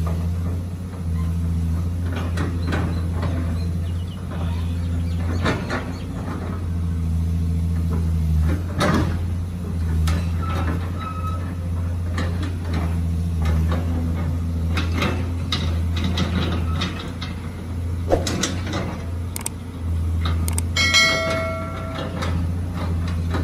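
Caterpillar hydraulic excavator's diesel engine running steadily as it digs, its drone shifting in level with the work, with scattered knocks through it. A brief high-pitched tone sounds near the end.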